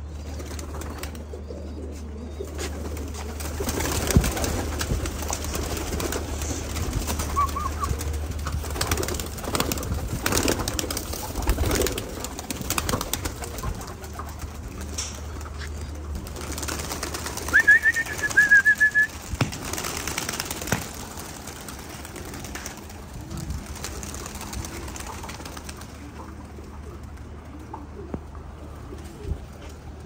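Domestic pigeons cooing and moving about on a rooftop loft, with a short high warbling call about two-thirds of the way through.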